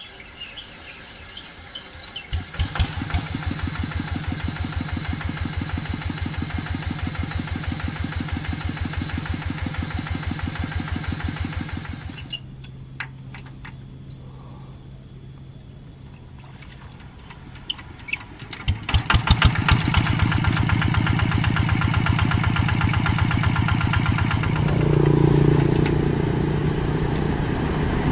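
Single-cylinder diesel engines of hand tractors being hand-cranked and firing up, one after another: a fast even chugging that picks up about two seconds in, a quieter steady run in the middle, then another engine catching and chugging loudly over the last third.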